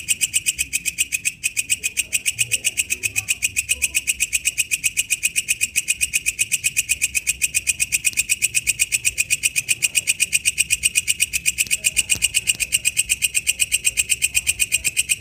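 Walang kecek, an Indonesian bush cricket, calling: a steady, rapid train of sharp, high clicking chirps, about nine a second, repeated evenly without a break.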